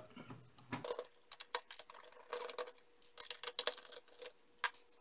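Hand screwdriver turning screws out of a clock radio's chassis: a run of irregular small clicks and ticks.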